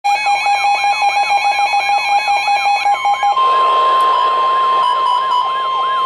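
NOAA weather radio sounding a severe thunderstorm warning alert: a rapidly pulsing beep over a warbling, rising-and-falling siren. About three seconds in, the beep gives way to a steady single-pitched tone, the warning alarm tone that comes before the spoken warning, while the warble goes on.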